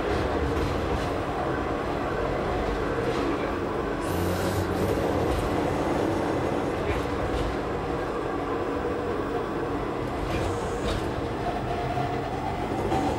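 KiHa 31 diesel railcar rolling slowly through a station, heard from the driver's cab: the engine drones steadily under the noise of the wheels on the rails, with a short high hiss about four seconds in.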